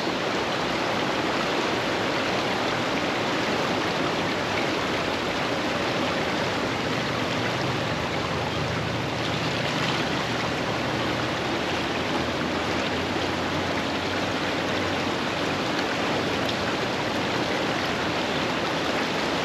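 A fast-flowing stream, swollen with high water, running steadily.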